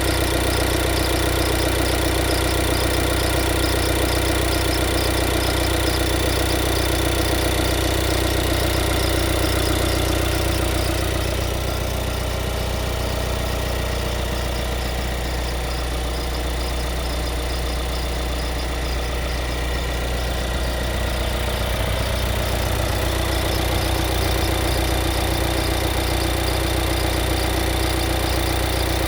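Skoda Octavia IV idling with a steady hum, over which an odd noise pulses at a regular beat; the pulse fades for several seconds midway, then returns.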